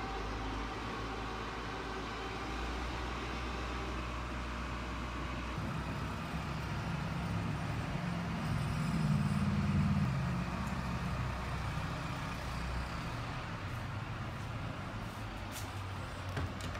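Steady low mechanical rumble and hum, growing louder for a few seconds about halfway through.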